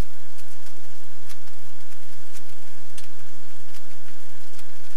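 Printed cotton fabric rustling and crinkling with scattered faint clicks as a sewn stuffed-toy shape is handled and turned right side out, over a steady low hum and hiss.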